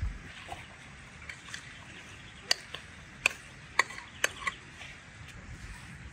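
A few light, sharp clicks and taps of kitchen utensils or dishware, about six spread over two seconds in the middle, over a faint steady hiss.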